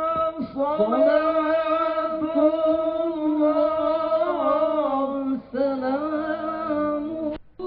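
Male voices chanting the Islamic shalawat, long held notes sliding slowly up and down in pitch, with a short break about five and a half seconds in and a sudden cut just before the end.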